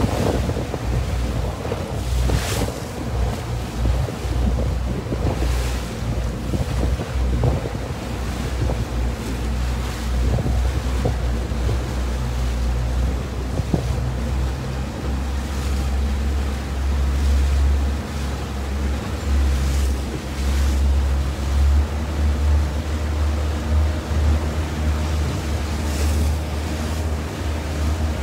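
Wind buffeting the microphone in a steady low rumble, with a few louder gusts, over choppy water splashing against a small moving boat.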